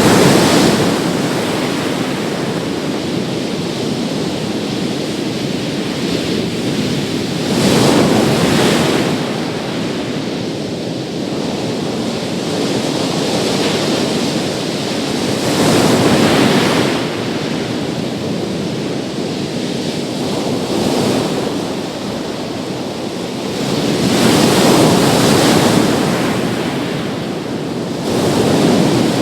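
Big sea waves breaking on a beach, a louder crash swelling up about every eight seconds over a steady wash of surf.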